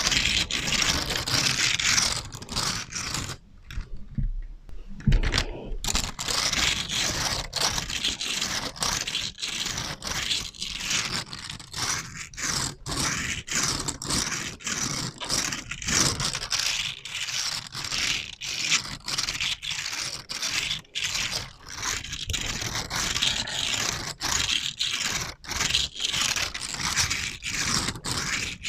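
Rapid, continuous scratching and scraping of an ASMR trigger object, run through an echo effect. It briefly drops out about four seconds in, then carries on in quick, uneven strokes.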